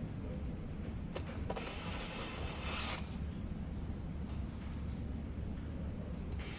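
Hands handling PC hardware: a couple of sharp clicks, then about a second and a half of rubbing and scraping, and a few light ticks, over a steady low hum.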